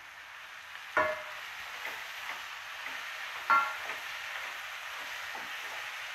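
Mixed vegetables and freshly added chopped tomatoes sizzling in a pressure cooker while a wooden spatula stirs them, with a ringing clank of the spatula against the metal pot about a second in and again midway, and softer scrapes between.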